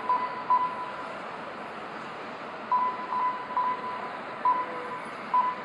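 Short electronic beeps from a race lap-timing system, all at one pitch and spaced irregularly, as RC cars cross the timing line, over a steady background hiss of the track.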